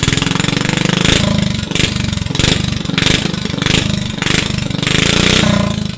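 Straight-piped 340cc single-cylinder kart engine running very loud, its revs surging over and over, about every two-thirds of a second.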